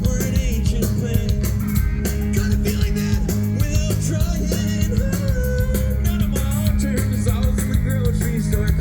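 Live rock band playing loud, with a fast, steady drum beat over heavy bass and guitar.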